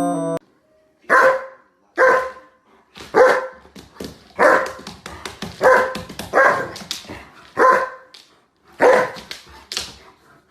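A dog barking repeatedly, about ten loud barks roughly a second apart.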